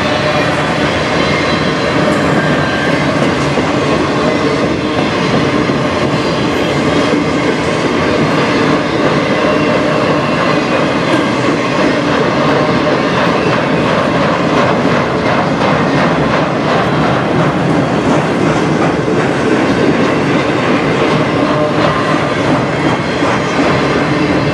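Freight train cars rolling past close by, covered hoppers and then empty flatcars: a steady, loud rumble and rattle of steel wheels on rail, with repeated clicking of wheels over the rail joints.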